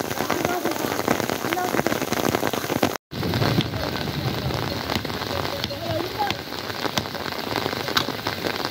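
Steady rain, with many separate drops clicking close by. The sound drops out briefly about three seconds in.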